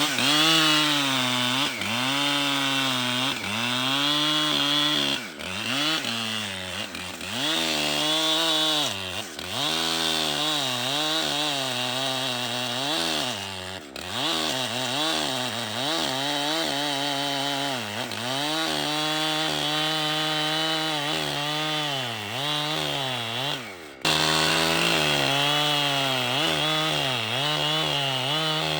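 Large two-stroke chainsaw running at full throttle while cutting wood; its pitch sags as the chain loads in the cut and climbs back, over and over. The sound breaks off abruptly twice and picks up again.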